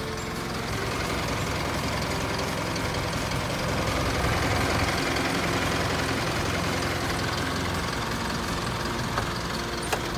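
Isuzu Elf light truck's engine idling steadily, a little louder around the middle.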